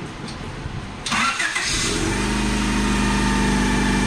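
1995 Honda Accord engine being started: the starter cranks about a second in, the engine catches and settles into a steady idle. The car still sounds like it has an exhaust leak, which is put down to the exhaust manifold.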